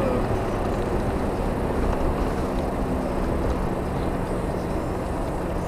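Toyota Land Cruiser 80 cruising on an asphalt road, heard from inside the cabin: a steady mix of engine and tyre noise with no sudden events.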